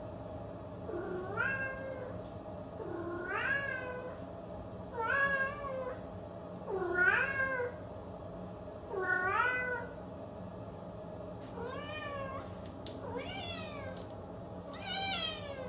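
Domestic cat meows, about eight in a row, roughly two seconds apart, each one rising and then falling in pitch, over a steady low hum.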